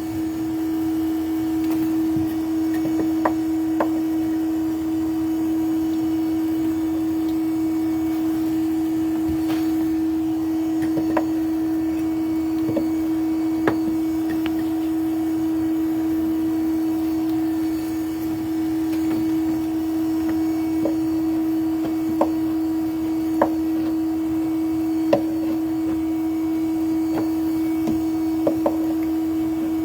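Steady motor hum of a bee vacuum running, holding one unchanging pitch, with a dozen or so sharp knocks scattered through it as comb is cut and handled.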